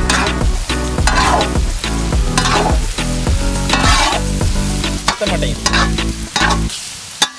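Chopped vegetables and chicken sizzling in hot oil in a pan as they are stirred and tossed, with a scraping stroke about once a second. The frying stops near the end.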